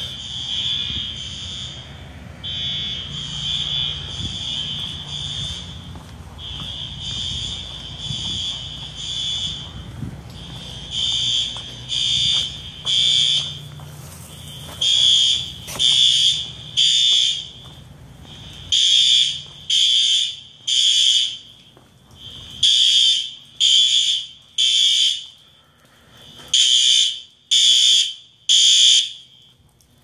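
Fire alarm horns sounding a high tone in repeating groups of three beeps with a pause between them, the standard evacuation pattern. The beeps grow sharper and more distinct from about a third of the way in. The alarm was set off by the building's sprinkler system.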